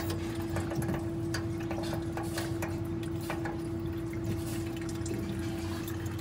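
A steady machine hum runs throughout, with scattered light clicks and taps of metal parts being handled.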